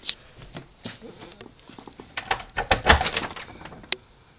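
Irregular clicks and knocks, the heaviest a thump about three seconds in.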